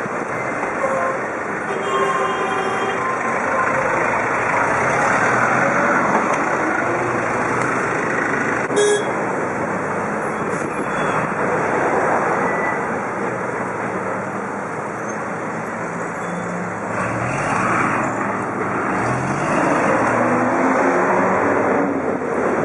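Dense city street traffic heard from a moving bicycle in slow rush-hour traffic: a steady rush of engines from a bus and a truck close by. A short horn toot comes about two seconds in, and an engine revs up near the end.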